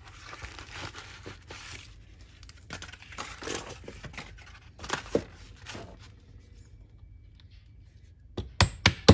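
Irregular scraping and handling of small metal parts of an air impact wrench, then a quick run of sharp knocks near the end as a tight part is driven down with a 10 mm socket.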